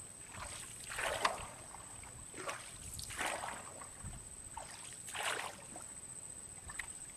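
Water splashing and dripping off a wet cast net as it is hauled hand over hand into a boat, in soft swishes every second or two.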